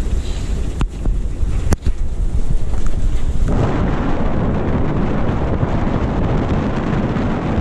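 Wind buffeting the microphone of a camera on a sailing yacht under way, a heavy low rumble with the rush of wind and water. Two sharp clicks come in the first two seconds, and about three and a half seconds in the rush turns louder and fuller.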